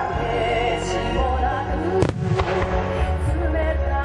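Fireworks going off over loud music: the music plays throughout, and shells burst with a sharp bang about two seconds in and another at the very end.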